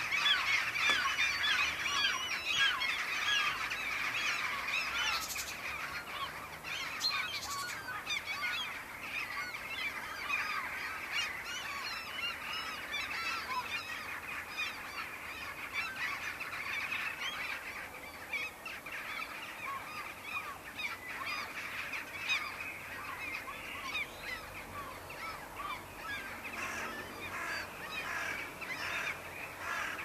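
A large flock of jackdaws and gulls calling in flight, a dense chatter of many short overlapping calls, loudest in the first few seconds.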